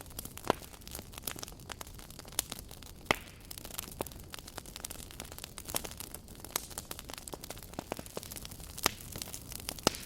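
Wood fire crackling: a steady soft hiss with frequent sharp pops and snaps at irregular intervals, a few loud ones standing out.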